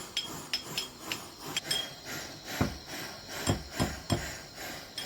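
Hand hammering on metal: a run of light, ringing taps, then four heavier knocks in the second half.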